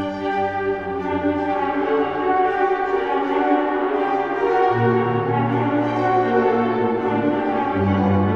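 Ghostly orchestral sound effect: long held chords, with the bass note shifting about halfway through and again near the end.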